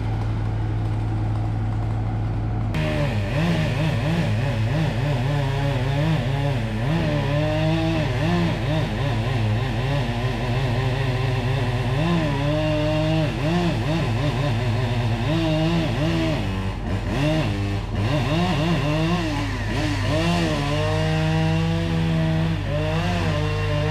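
A chainsaw starts up about three seconds in and runs, its pitch rising and falling again and again as it is throttled while cutting into a tree. A tracked logging machine idles steadily underneath.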